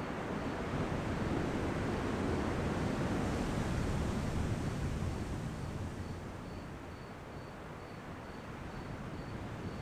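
Ocean surf: a wave washes in, swelling to its loudest about three to five seconds in and then ebbing away, with the next one building near the end.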